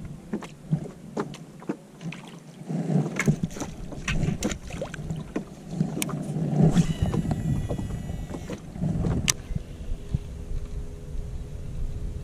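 Handling noise of casting and reeling in a chatterbait from a small john boat: scattered clicks and knocks of the reel and gear against the boat over a low rumble. There is a brief whirring about seven seconds in and a steady hum over the last few seconds.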